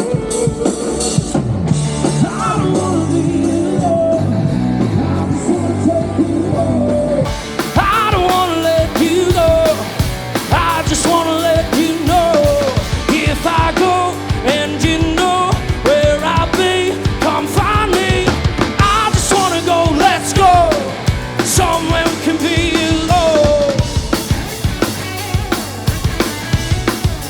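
Live rock band playing with drum kit, bass and guitar. About seven seconds in the sound suddenly turns brighter and fuller, and a lead singer comes in over the band.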